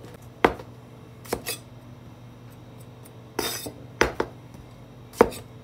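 Kitchen clatter: about six sharp knocks and clinks of a knife and metal plate on a cutting board and counter, with a short scraping rustle midway.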